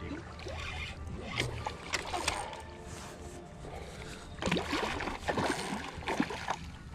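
Hooked red drum thrashing and splashing at the water's surface, with scattered splashes early and a dense run of them in the second half.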